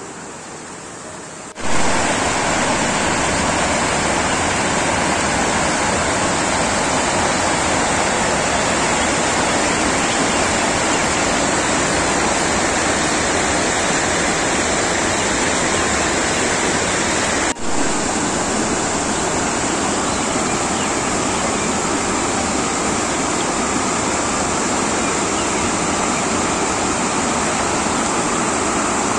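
Mountain stream rushing, a steady loud rush of water. It comes in abruptly about one and a half seconds in and breaks off for an instant just past halfway.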